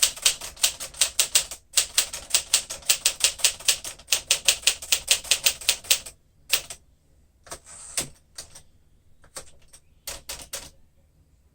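1953 Smith-Corona Super manual typewriter being typed on: fast, even keystrokes, the typebars snapping against the platen, for about six seconds with a brief pause. Then a few slower, scattered keystrokes and a short rasp ending in a knock, before it falls quiet near the end.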